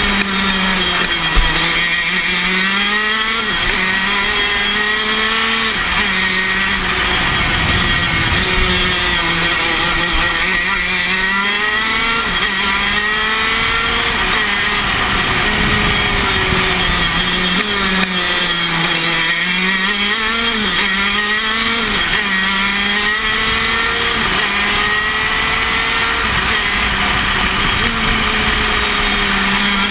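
Tony Kart KZ125 shifter kart's 125 cc two-stroke engine at racing speed, revving up through the gears with its pitch climbing and then dropping sharply at each shift, and falling away under braking into the corners.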